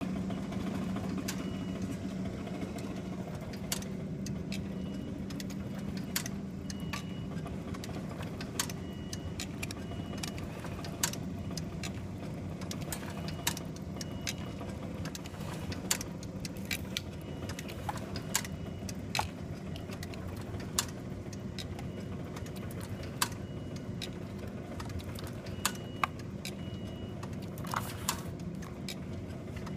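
Jones IMV 5 intermittent-motion vertical tuck cartoner running: a steady motor hum under sharp metallic clacks from its indexing and tucking mechanism, about one every second or so, with short high tones in pairs now and then.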